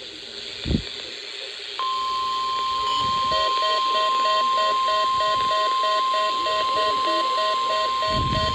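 Weather radio warning alarm tone used in a weekly test: a steady single tone at about 1,050 Hz that starts about two seconds in. From about three seconds in, a second, lower beep pulses over it about four times a second. A short thump comes near the start.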